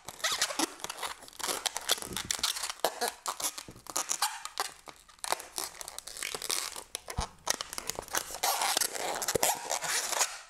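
Latex modelling balloons being twisted and rubbed together, giving a dense, irregular run of squeaks, crackles and rubbing noises.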